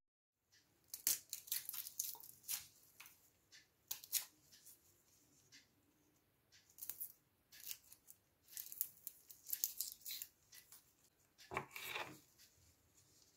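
Dry papery skin of a red onion crackling and tearing as it is cut and pulled off with a small knife and fingers: short, irregular crisp crackles in clusters, with a quiet spell in the middle.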